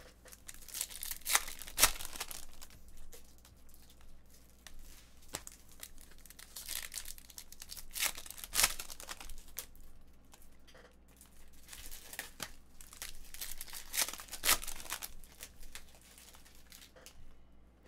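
Baseball card packs being torn open by hand, the wrappers crinkling, with a few sharp, louder rips scattered through.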